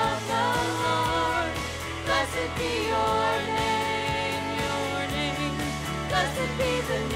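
Church worship team singing a praise song, voices holding wavering notes over instrumental accompaniment with a steady beat.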